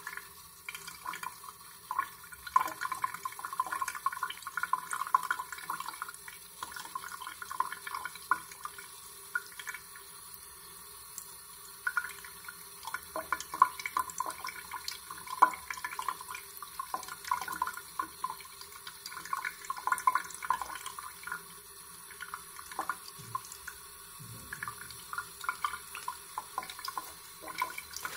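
A thin stream of tap water running into a sink and splashing irregularly over a small bird held in a hand.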